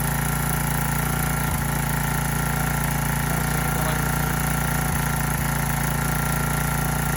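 Small generator engine running steadily on biogas, warmed up and running smoothly.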